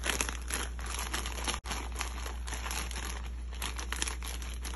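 Plastic zip-top bag crinkling steadily as it is handled and squeezed to mix seasoning into raw chicken feet, with a momentary dropout about a second and a half in.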